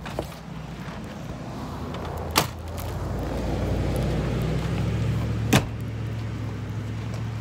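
Steady low rumble and hum, with two sharp pops about three seconds apart, the first about two and a half seconds in: wood popping in a small stainless-steel fire pit.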